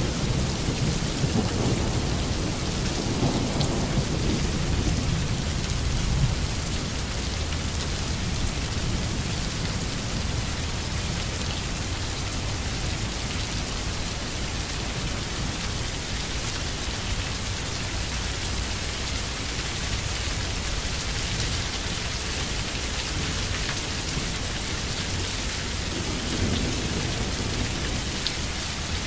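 Steady rain falling, with low rolls of thunder in the first few seconds and again near the end.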